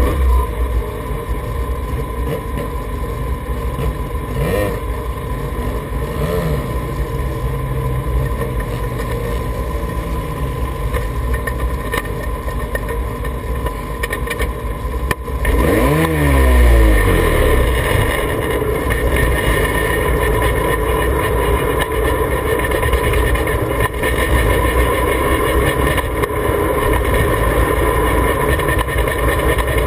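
Formula Mazda race car's Mazda rotary engine, heard onboard, idling with a couple of short throttle blips. About halfway through it revs up, the pitch rising and falling several times as the car pulls away from a standstill, then it runs steadily and louder as the car drives.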